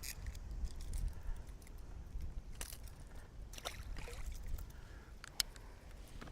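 Water sloshing against a boat hull, under a steady low wind rumble on the microphone, with a few short sharp clicks and splashes.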